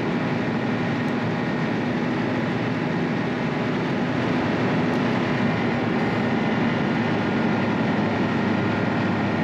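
Snowmobile engine running at a steady cruise, its drone mixed with track and wind noise.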